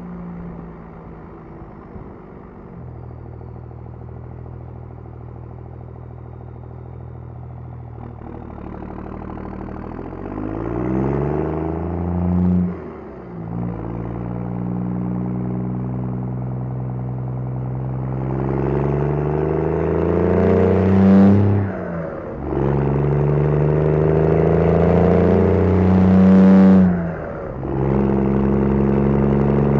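2002 Dodge 2500's 5.9-litre Cummins turbo-diesel straight-six running steadily, then pulling hard through the six-speed manual's gears. Engine speed climbs and drops at three shifts, about halfway through, about three-quarters through and near the end, getting louder with each gear.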